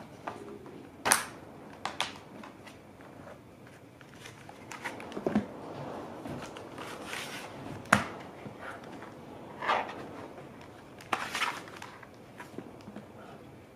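Plastic case of an Elecom TK-FDM063BK wireless keyboard being handled and turned over on a cardboard sheet: a series of separate knocks and clatters, about half a dozen, with light rustling between them.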